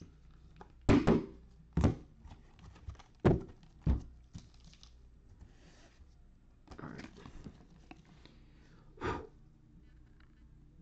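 Sharp plastic taps and clicks from handling sleeved trading cards: a card in a soft plastic sleeve knocked and slid into a rigid plastic toploader. Four quick taps come in the first four seconds and one more near the end, with light plastic rustling between them.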